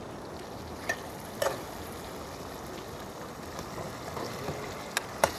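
Potatoes with onion and tomato frying in desi ghee in a cooking pot, a steady sizzle. Four sharp clinks of a utensil against the pot, two about a second in and two near the end.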